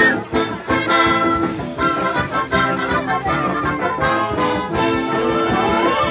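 Live wind band, with brass and saxophones, playing an upbeat tune with a steady beat; one note slides upward near the end.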